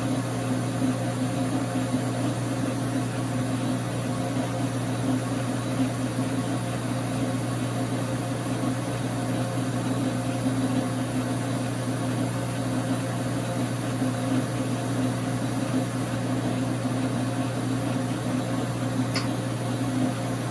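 Dar Sin 12x37 gap bed lathe running steadily under power, its 220 V single-phase motor and gearing giving an even hum; a single sharp click sounds near the end.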